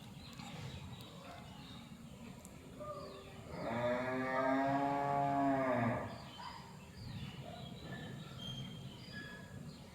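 A cow mooing once, a single long call of about two seconds near the middle.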